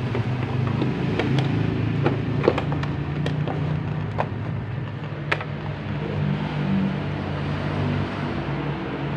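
Hands handling a small plastic radio, seating batteries in its compartment and setting multimeter probes: several sharp clicks and clatters over the first five and a half seconds, over a steady low hum.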